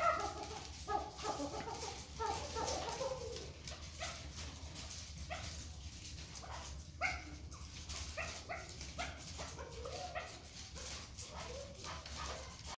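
Chukar partridges calling: a continuous run of short, repeated clucking and chattering notes, over a steady low hum.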